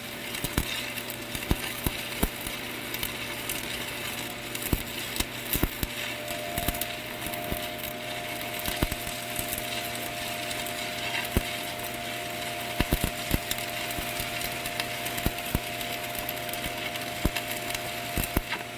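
Stick (shielded metal) arc welding on a steel pipe joint: the arc hisses steadily with irregular sharp crackles and pops. A low steady hum runs underneath, and a steady higher tone joins about six seconds in.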